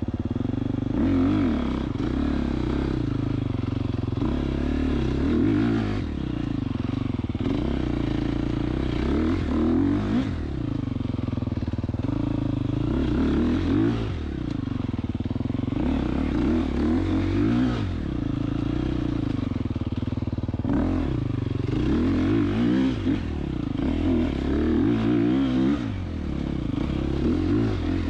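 Dirt bike engine ridden hard through an enduro trail, its revs rising and falling over and over as the throttle is worked, with clatter and scraping over the top.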